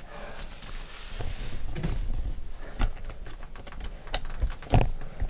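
Irregular light clicks and taps with low thuds among them, one louder knock a little before the end: a person shifting and moving about in a cramped attic room.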